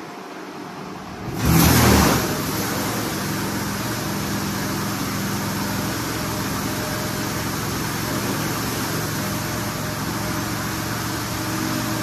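PDQ LaserWash M5 touchless car wash starting its spray: about a second and a half in, the water jets come on with a sudden loud rush. A steady hiss of high-pressure spray from the overhead arm follows, with a low hum underneath.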